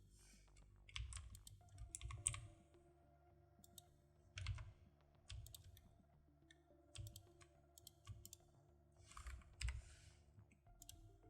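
Faint, scattered computer keyboard keystrokes and mouse clicks, a few irregular taps every second or two, over a low steady hum.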